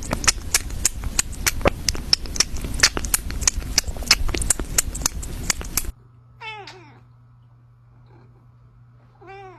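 A rapid, irregular clatter of sharp clicks and knocks that cuts off about six seconds in, followed by a cat meowing twice, about three seconds apart.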